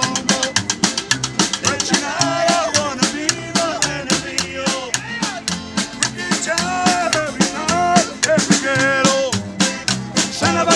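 Regional Mexican band music: snare drum on a quick steady beat over upright bass and guitars, with an accordion-style wavering melody line.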